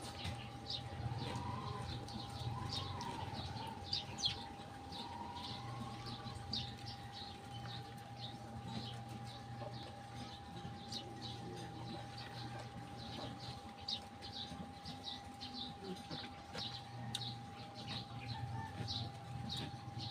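Small birds chirping in the background, short high chirps a few times a second, over a steady faint hum.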